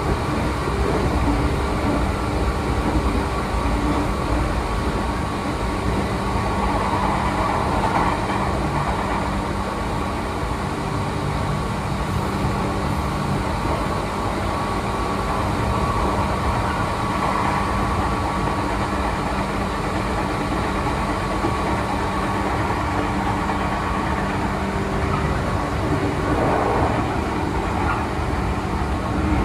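Meitetsu electric train running at speed, heard from inside its driver's cab: a steady rumble of wheels on rail with a constant hum over it.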